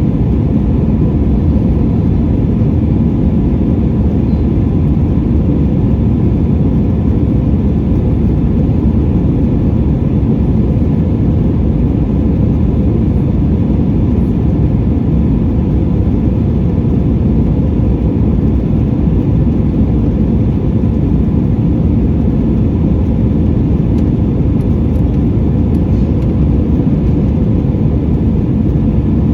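Steady roar of an Airbus A320's IAE V2500 turbofan engines and rushing air, heard inside the passenger cabin, with a faint steady whine above the low rumble.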